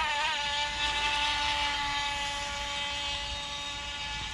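Small electric RC boat's motor whining at a steady high pitch as the boat runs across the water. The pitch wobbles briefly at the start, then holds level.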